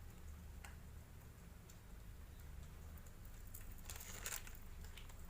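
Plastic packaging of a fishing lure crinkling as it is handled: a few light clicks, then a short burst of crinkling about four seconds in, over a faint low hum.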